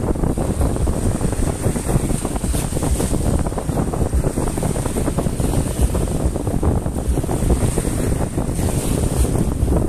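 Wind buffeting the microphone in a heavy, gusting rumble, over small sea waves washing onto the sand.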